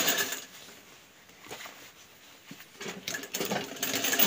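Tochi sewing machine stitching a jacket seam, stopping about half a second in. After a quiet pause with a few soft knocks as the fabric is handled, the machine starts stitching again near the end.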